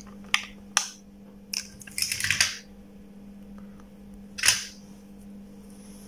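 Light clicks and scratchy rustles of fingers handling thin hook-up wire on a small rotary switch's solder tags, over a steady low hum. A short hiss comes about four and a half seconds in.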